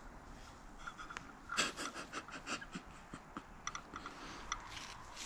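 Faint handling noise: clothing and glove rustling with light clicks as an old camshaft is turned over in the hand for a look at its lobes, with a short flurry of clicks and rustles about a second and a half in.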